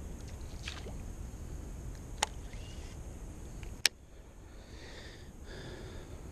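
Handling of a baitcasting rod and reel: two sharp clicks about a second and a half apart over a steady low rumble, which drops after the second click.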